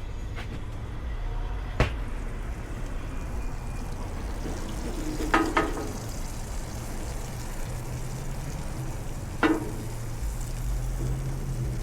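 Food frying in a pan, a steady sizzle over a low hum, with three sharp metal knocks: a spatula or utensil striking the pan about two seconds in, midway and near the end.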